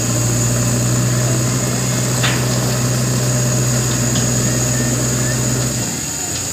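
Tipper truck's diesel engine running at raised revs to drive the hydraulic hoist as the bed tips a load of soil; the steady engine hum drops off sharply near the end as the hoist stops.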